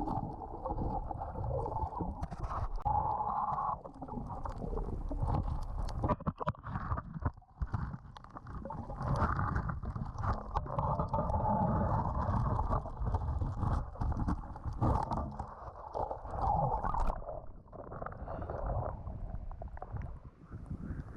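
Muffled underwater sound of a scuba diver's breathing: bubbling and gurgling that swells every few seconds, with scattered sharp clicks and knocks.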